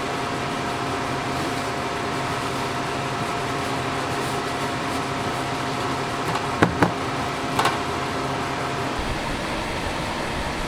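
Steady machine hum with a held tone, like an air conditioner or fan; two sharp clicks about six and a half seconds in and two more a second later, and the tone drops out near the end.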